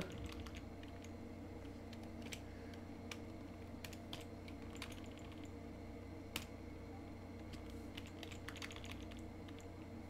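Computer keyboard keys pressed in scattered single taps, roughly one every second or so, while a line of code is copied and pasted in a text editor. A faint steady hum sits underneath.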